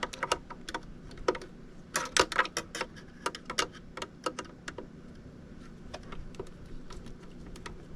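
Irregular light clicks and ticks of a screwdriver working on the plastic console trim while screws are loosened. The clicks come thick from about two seconds in and thin out after about five seconds.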